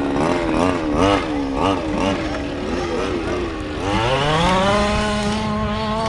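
Small two-stroke petrol engine of a 1/5-scale FG radio-controlled truck, revving up and down in quick throttle blips. About four seconds in it climbs smoothly to a steady, high-pitched full-throttle run.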